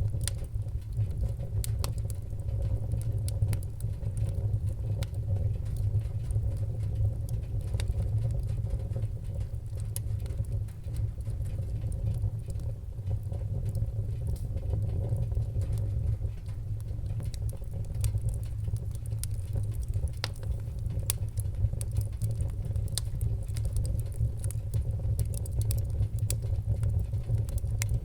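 Wood fire burning in a fireplace: a steady low rumble of the flames with frequent small, sharp crackles and pops scattered irregularly throughout.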